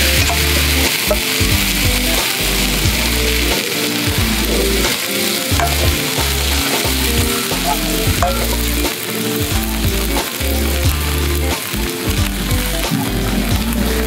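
Chopped cabbage and monjayaki batter sizzling steadily on a hot griddle plate over a cassette gas stove. Soft music with a bass line runs underneath.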